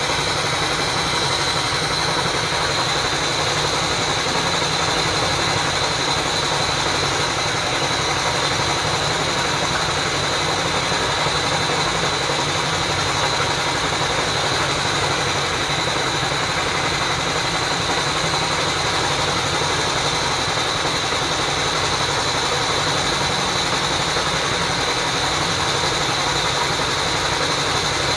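Small engine-driven water pump running steadily at constant speed, an even drone with a thin high whine over it.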